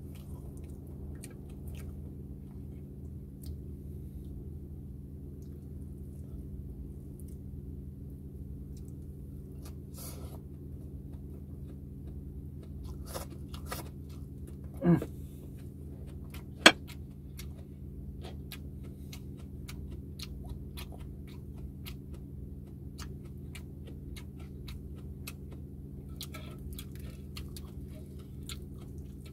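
Close-up eating sounds of crispy pata, deep-fried pork knuckle: chewing and biting with scattered small crunches and wet clicks over a steady low hum. About halfway through comes a short sound sliding down in pitch, then a single sharp click, the loudest moment.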